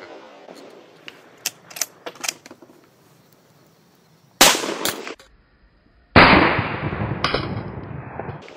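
Rifle fire from a .308 GA Precision Gladius with an 18.5-inch barrel and a SureFire muzzle brake: a few faint sharp cracks, then two loud shots about halfway through and about two seconds later, the second dying away slowly over about two seconds.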